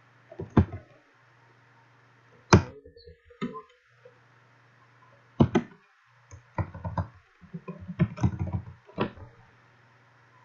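Computer keyboard keys clicking in short bursts of typing with pauses between, over a faint steady low hum.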